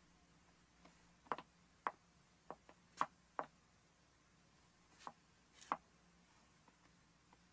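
A handful of short, sharp knocks and clicks, irregularly spaced, over a faint quiet background.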